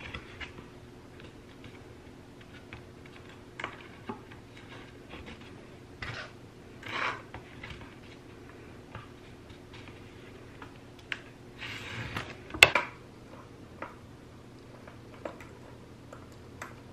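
Scattered light taps and clicks of a metal caster wheel being set down and shifted on a pine board, with short scratches of a pencil marking around it; one sharper click about twelve and a half seconds in.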